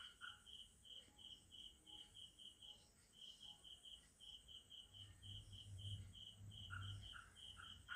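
Faint insect chirping: a steady run of short, high chirps about five a second, with lower chirps at the start and near the end.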